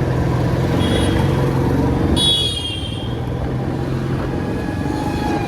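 Royal Enfield Classic 350's single-cylinder engine running steadily on the road in traffic. A short high-pitched horn toot sounds about a second in, and a longer one a little after two seconds.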